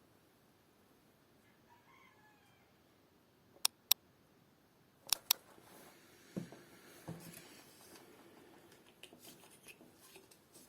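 Four sharp clicks in two quick pairs about a second and a half apart, then faint handling noise and light knocks: small parts being handled while a drop of oil goes into a power-supply fan's bearing.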